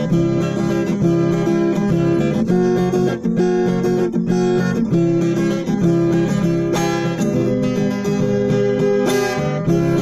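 Background music of strummed acoustic guitar.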